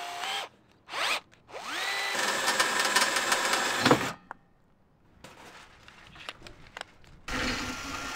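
Bosch cordless drill. After a couple of short trigger blips, the motor spins up to a steady whine for about two seconds and stops. Near the end it runs again as the bit bores through the steel Unistrut channel.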